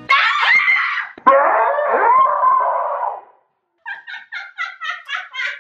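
A woman's voice lets out a loud, drawn-out, high-pitched cry in two stretches lasting about three seconds. After a brief pause come rapid bursts of laughter.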